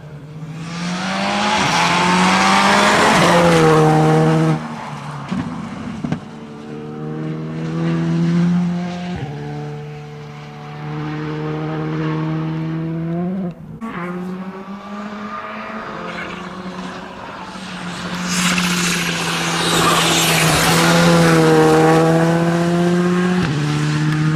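Rally car engine revving hard through the gears, its pitch climbing and dropping with each shift and cutting off abruptly on throttle lifts. It is loudest twice as the car comes close.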